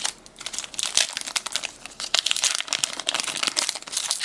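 Foil wrapper of a Pokémon trading card booster pack crinkling as it is handled and opened: a dense run of quick, sharp crackles.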